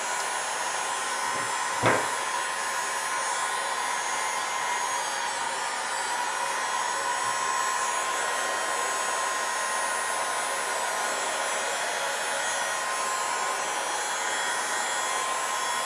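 Heat gun blowing steadily, a whooshing fan noise with a faint steady whine, as it warms the edge of an iPad 2's glass digitizer to loosen the adhesive. A single short tap sounds about two seconds in.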